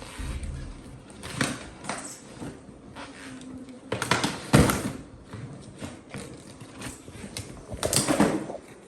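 Irregular handling noises of an unboxing: knocks, clicks and rustling, with the loudest swells about four and a half seconds in and again around eight seconds.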